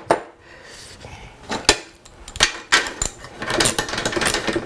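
Metal hand tools and bolts clinking and knocking: a wrench being worked and set down on a bicycle frame, about half a dozen separate sharp clinks.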